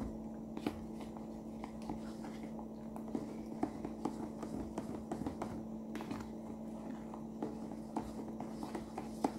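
Plastic spoon stirring a foamy liquid-soap mixture in a plastic jug, with many small clicks and scrapes as it knocks and rubs against the jug, to dissolve the lumps of soap paste in hot water. A steady low hum sits underneath.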